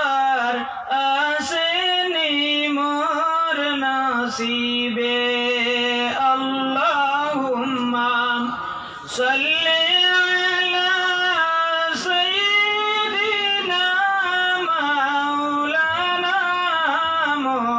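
A man's voice singing an unaccompanied devotional chant, holding long, slowly wavering melismatic notes with a short pause for breath about nine seconds in.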